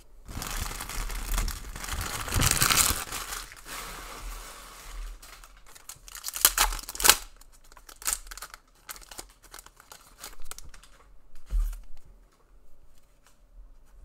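A trading card pack's wrapper being torn open and crinkled, a dense rustle over the first few seconds that is loudest two to three seconds in. Then come scattered sharp clicks and small rustles as the cards are handled.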